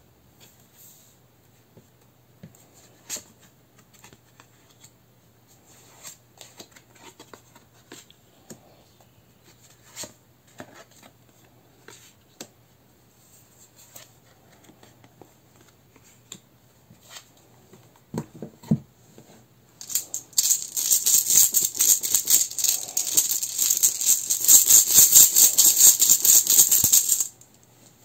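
Soft clicks and taps of tarot cards being handled and laid on a wooden table. About twenty seconds in, runes are shaken in a velvet pouch: a loud, dense rattling clatter that lasts about seven seconds and stops abruptly.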